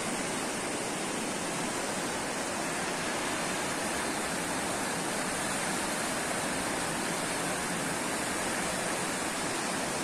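Steady rushing of a river flowing over shallow rapids.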